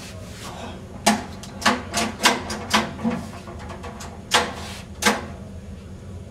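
Frost Products coin-operated condom vending machine being worked by hand: a run of sharp clicks and clunks from its turn-knob coin mechanism and dispensing tray, about eight in all over some four seconds.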